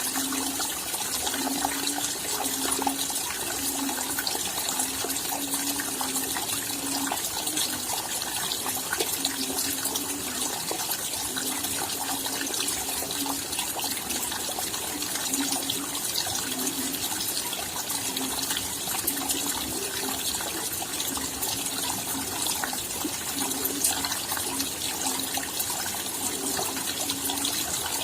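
Steady rain falling: a dense patter of individual drops over an even hiss, with a low note that comes and goes every second or so.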